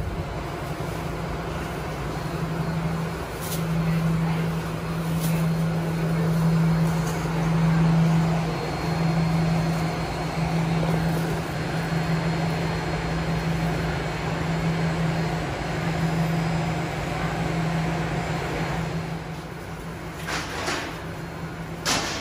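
Commercial bakery machinery, such as a conveyor bread oven, running with a steady low hum over a wash of noise. A couple of sharp knocks come near the end.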